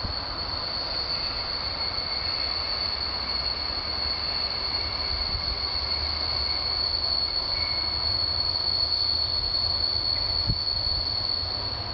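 Electric suburban train braking as it approaches a halt to stop: a steady, high-pitched squeal of the brakes and wheels, growing slowly louder over a low rumble.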